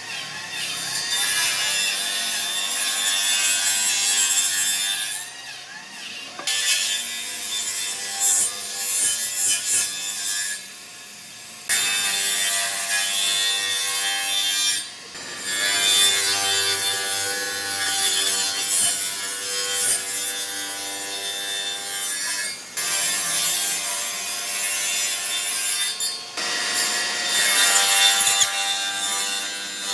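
Tools cutting and shaping wood, in a series of stretches that change abruptly from one to the next.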